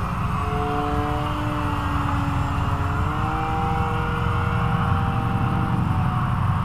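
Radio-controlled Yak aerobatic plane's motor and propeller droning in flight, a steady pitched hum that steps up a little about halfway through and fades near the end, over a low rumble. The pilot puts its odd noise down to an 11-inch propeller fitted in place of the usual 12-inch.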